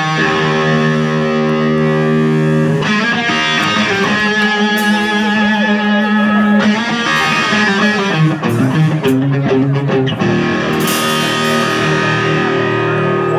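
Live rock band playing the instrumental opening of a song, led by distorted electric guitar holding chords that change a few times.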